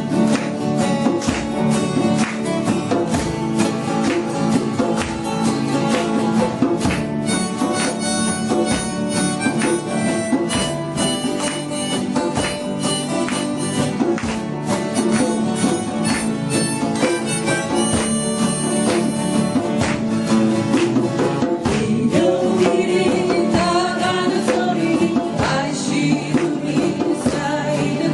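Instrumental folk intro: an acoustic guitar strummed steadily under a harmonica playing the melody.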